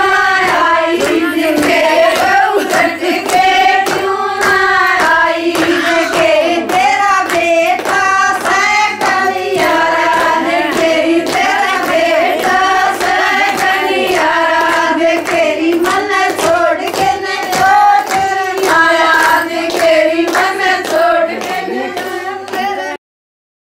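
Group of women singing a Haryanvi folk song in unison, with steady rhythmic hand-clapping keeping the beat. The sound cuts off suddenly near the end.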